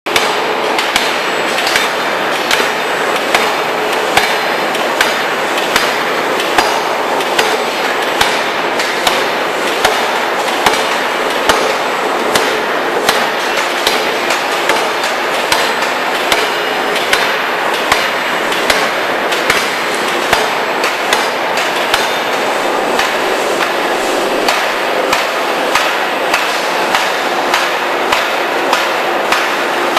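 Power forging hammer striking steadily, a sharp blow about every 0.8 seconds, over continuous loud machine and workshop noise.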